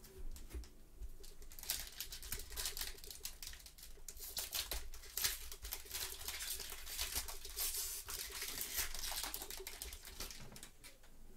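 Foil wrapper of a Panini Contenders basketball card pack being torn open and crinkled in gloved hands, a dense run of crackling rustles that fades near the end.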